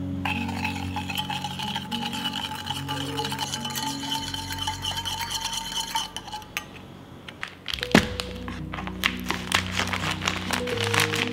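Sauce being stirred with a spoon in a small stainless steel bowl: metal scraping around the bowl, which gives a steady ring for about six seconds. About eight seconds in comes a sharp clink, then a run of quick clinks and scrapes. Soft background music plays underneath.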